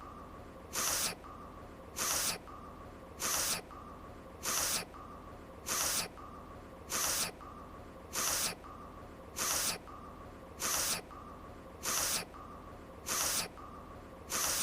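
An anime character's voiced sniffle repeated over and over: short, sharp sniffs at an even pace of about one every 1.2 seconds, with a faint steady tone between them.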